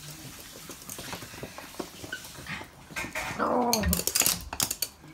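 Toy poodle giving one short whine that slides down in pitch about three and a half seconds in, amid the clicks and scuffles of the dogs' claws on a hard wooden floor.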